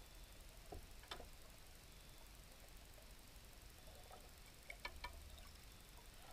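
Near silence from a GoPro underwater in its waterproof housing, with a few faint clicks: two about a second in and a small cluster toward the end.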